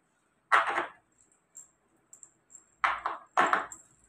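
Small metal screws and bolts clinking and rattling in the hands while a washing machine's tub halves are being bolted back together. There is a short clatter about half a second in, a few faint ticks, then two more clatters close together near the end.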